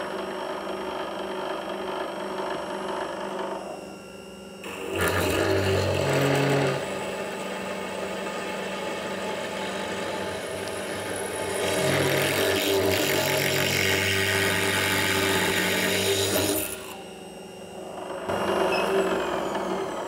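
Laguna DP:20 drill press running at 3,000 RPM, a 3/16-inch twist bit cutting a pilot hole into an oiled steel block. The steady motor whine grows louder with heavier cutting noise for a couple of seconds about five seconds in and again for about five seconds past the middle. Near the end the motor begins to wind down.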